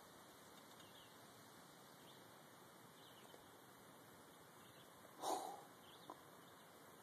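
Near-silent pond-side background with faint, high bird chirps about once a second. About five seconds in, one short splash as the snake drops back into the water, followed by a faint click.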